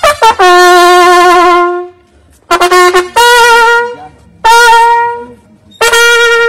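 Trumpet played live: about four long held notes with vibrato, separated by short gaps. The later notes are higher than the first.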